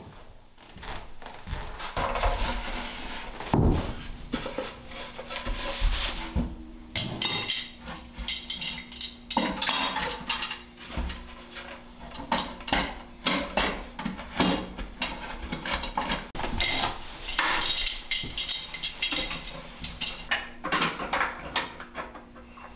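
Plywood cabinet panels being handled and fitted together by hand: irregular wooden knocks and thumps, with scraping and rubbing as the panels are slid and clamped into place.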